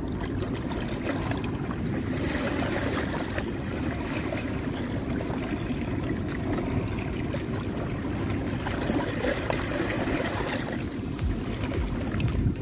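Small waves washing and splashing against shoreline rocks, a steady rush of water with small splashes.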